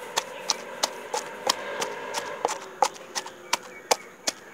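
Pestle pounding in a small mortar, crushing chili and onion into a chili chutney: a steady run of sharp knocks, about three a second.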